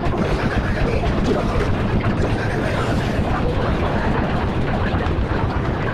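Busy café ambience: indistinct voices and chatter over a steady low rumble.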